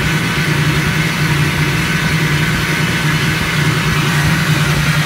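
Copeland reciprocating compressor running steadily with a low hum and a hiss over it, its motor turning but not pumping: a broken mount has snapped the discharge line off inside the shell.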